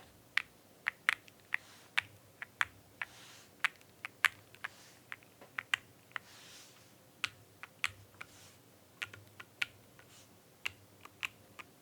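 IQUNIX Super 1+1 TKL custom mechanical keyboard being typed on, single keystrokes at an uneven pace of about two a second. It is a heavily foamed build with an FR4 plate and double-shot PBT keycaps, and it gives the foamed-out, marbly sound signature.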